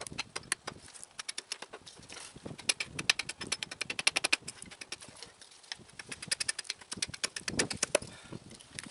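Carpenter's hatchet held choked up behind the blade, chopping short, quick strokes into a split wooden stick resting on a stump. It makes a rapid, uneven run of sharp wooden knocks, several a second, with a brief pause about halfway.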